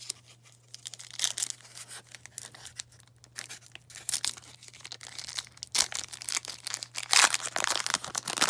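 A baseball card pack's wrapper being torn open and crinkled in the hands, in irregular crackly bursts that grow louder and busier toward the end.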